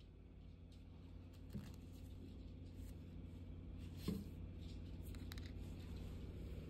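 Faint handling of a cotton sweatshirt zip-up hoodie and its card hang tag: soft fabric rustles and a few light clicks, the loudest about four seconds in, over a steady low hum.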